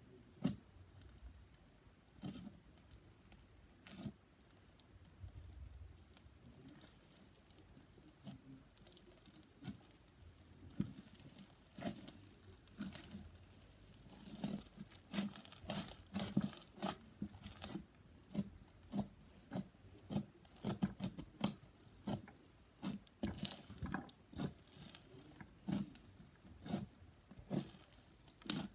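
Hands pressing and poking blue slime packed with foam beads, giving short crunchy crackles and squishes. A few scattered pokes at first, then a quicker run of crunches from about halfway through.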